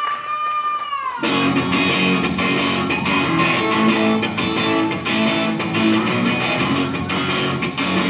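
A woman's held sung note falls away, and about a second in an electric guitar comes in loud, strumming a steady rhythm of chords.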